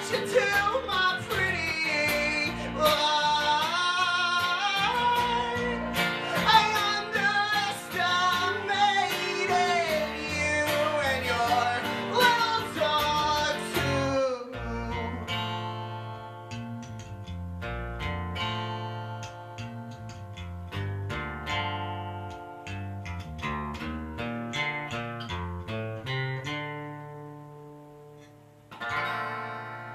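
Acoustic guitar and electric bass playing together, with a gliding wordless sung line over them for about the first half. About halfway through the singing stops and the playing thins to separate picked notes that slowly fade, with one last chord struck near the end.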